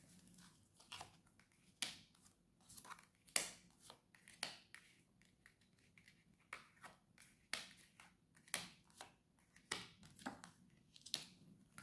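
Tarot cards being drawn from the deck and laid one at a time onto a burlap-covered table: a string of faint, short snaps and slaps, irregular, about one or two a second.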